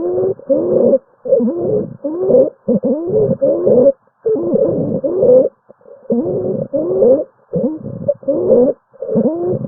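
Stridor: a pitched, wavering breath sound repeating rapidly with short gaps between breaths, the sign of a narrowed upper airway.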